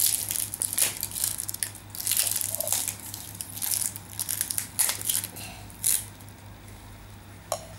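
Foil wrapper crinkling and tearing as it is peeled off a surprise egg's plastic capsule: dense crackling at first, then a few scattered crinkles.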